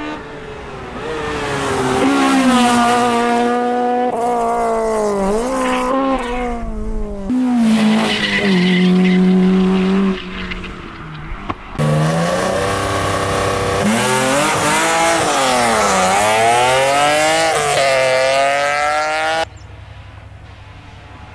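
Rally car engines driven hard on a stage, heard in clips cut together. A Honda Civic rally car revs high, its pitch climbing and dropping with gear changes and lifts. After a sudden cut another rally car runs at high revs, with a deep dip and climb in pitch. Near the end the sound drops suddenly to a quieter, steady engine of a distant car.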